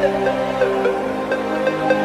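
Electronic background music with held synth notes that change pitch, over light regular clicks.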